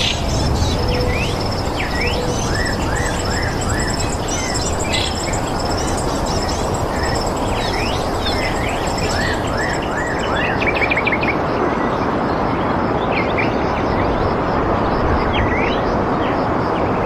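Several birds chirping and calling in short repeated notes over a steady, loud rushing background noise. A high, rapid trill runs beneath them and stops about ten seconds in.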